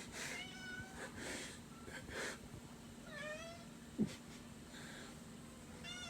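Domestic cat meowing twice, once about half a second in and again about three seconds in, with a short knock near four seconds.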